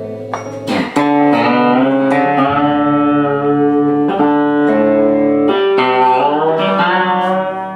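Electric guitar music: sustained plucked chords and notes, with new chords struck about a second in and again around four and five and a half seconds in, and a few notes bent or slid near the end.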